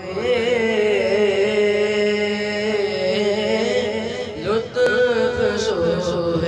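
A single voice reciting a naat in a melodic chant, holding long wavering notes. Near the end come a couple of short clicks.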